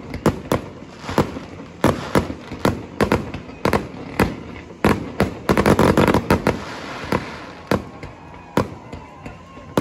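Aerial fireworks bursting in a string of sharp bangs at irregular intervals, packing into a rapid crackling barrage about halfway through, then thinning to scattered bangs.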